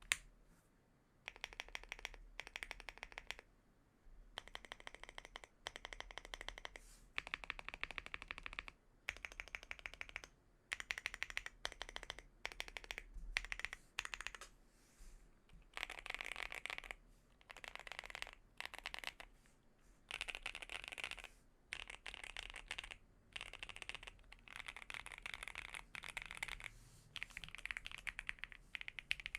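Typing on a Monsgeek M1 mechanical keyboard with AKKO CS Silver linear switches and PBT doubleshot keycaps, modded with tape and PE foam. Fast runs of keystrokes lasting a second or two, with short pauses between them.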